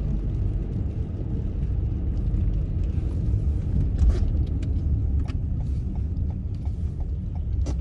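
Car driving, heard from inside the cabin: a steady low rumble of engine and tyres, with a few light clicks here and there.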